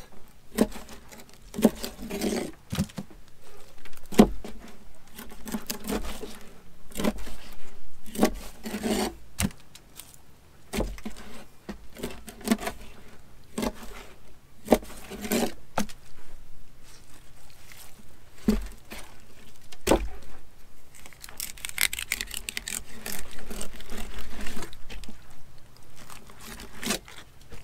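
Knife cutting bait fish on a wooden cutting board: irregular sharp knocks of the blade hitting the board, with scraping and slicing between them and a longer stretch of scraping in the second half.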